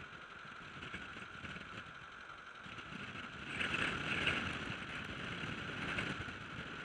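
Steady road noise from riding along a tarmac road: tyre rumble and wind on the microphone of a camera mounted on the machine, getting louder a little past halfway.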